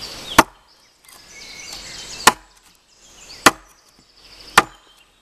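Fiskars X7 hatchet chopping into a wooden branch lying on a log: four sharp chops, the first followed by a pause of about two seconds and the others coming about a second apart. They are angled cuts that knock chips out of the wood.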